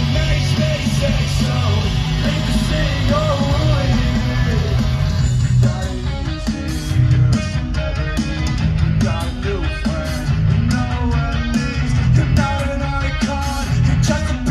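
Live pop-punk band playing loudly through a festival PA, electric guitars and drums under a male lead vocal, heard from the crowd.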